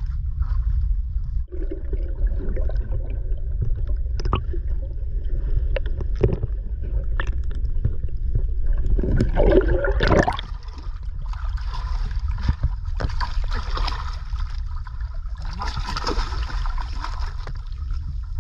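Sea water gurgling and sloshing around a camera that dips below the surface beside a boat's hull, over a steady low rumble. About nine to ten seconds in comes a louder rush of water, followed by a spell of hissing splashes.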